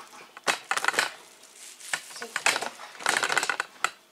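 Kitchen handling noises: irregular clicks, knocks and light clatter, with a denser crinkly rustle about three seconds in.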